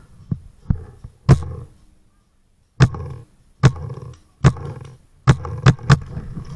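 Paintball marker firing single shots: nine sharp pops at irregular intervals of about a second, the last three coming in quicker succession.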